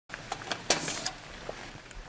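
Clicks and knocks of a metal security screen door being unlatched and pushed open, the loudest about two-thirds of a second in.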